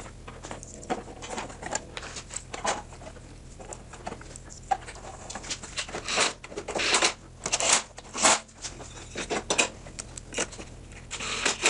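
Small clicks, taps and scrapes of parts being fitted by hand: a bolt and the metal thickness-setting crank handle going onto a DeWalt DW735 thickness planer. A few longer, louder scrapes come about six to eight seconds in.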